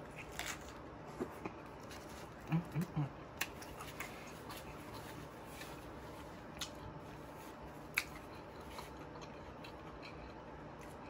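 Close-miked biting and chewing of a breaded spicy chicken sandwich, mouth closed: scattered small wet mouth clicks and crunches. There are three short low hums about two and a half seconds in and a sharper click near the end.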